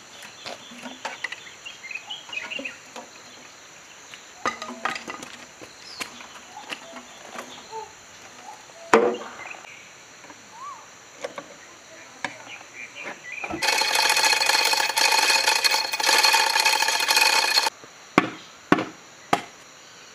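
Light metal clinks and knocks as parts at the timing-gear end of a diesel engine are pried and worked loose by hand, with one sharp knock about nine seconds in. Past the middle comes a loud rattling of about four seconds. Near the end there are about four hammer blows on the bare cylinder block.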